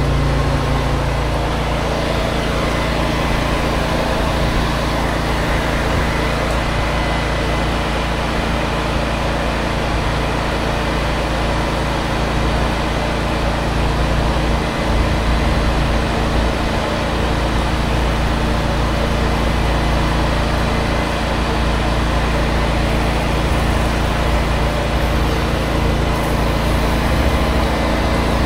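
Pressure washer's gas engine running steadily under load, with a steady hiss of water spraying from the wand.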